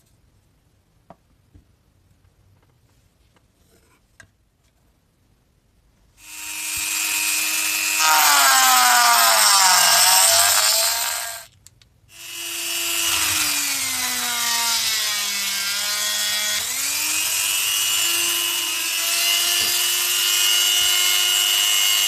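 Flexible-shaft rotary tool grinding a hole in a PVC disc. It starts after about six seconds of near quiet with a few faint ticks. Its whine drops in pitch as the bit bites into the plastic, stops briefly about halfway, then restarts, sags again under load and runs steadily to the end.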